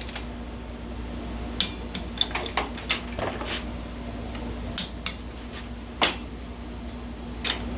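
Metal tools and small engine parts clinking and clicking now and then, a handful of separate sharp knocks, over a steady low hum.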